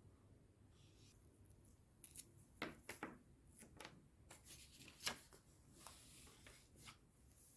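A faint series of short, crisp snips and rustles of small hand-handled objects, like paper being cut or handled, spread irregularly over several seconds.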